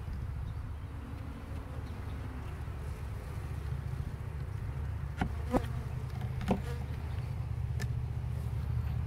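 Honeybees buzzing in a steady low hum around an opened hive, with a few short knocks a little past halfway.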